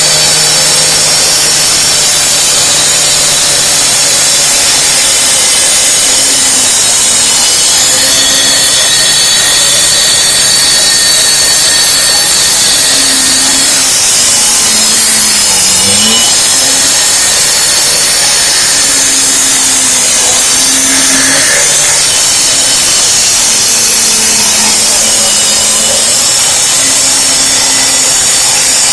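Concrete saw cutting through a concrete slab, running loud and continuous under load, its motor pitch dipping and recovering every few seconds.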